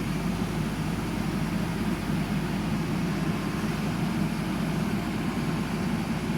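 Heavy diesel engine running steadily at an even, low pitch, with no change in speed.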